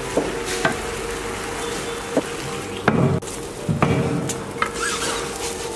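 Scallion flatbread sizzling on a hot griddle pan, a steady frying hiss with a faint steady hum under it. A few sharp knocks and clatters of utensils on the pan come through, the loudest about three and four seconds in.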